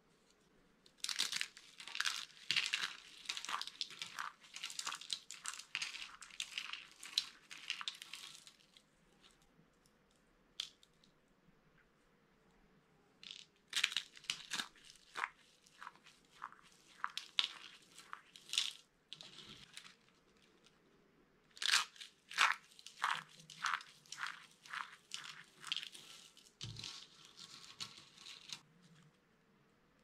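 Hands crushing dry, brittle soap curls, making rapid crisp crunches in three runs. The runs are split by a pause of a few seconds a third of the way in and a short pause about two-thirds in.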